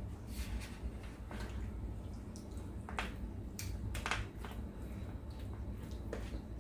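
A utensil stirring thick cheese sauce into chicken in a baking tray: scattered wet squelches with light scrapes and taps of the utensil against the tray, over a steady low hum.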